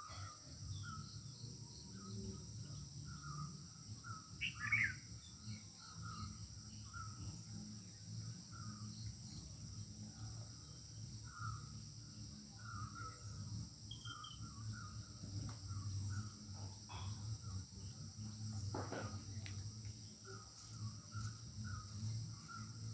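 Outdoor rural ambience: a steady high insect drone, with a bird calling in short chirps repeated again and again, over a low hum.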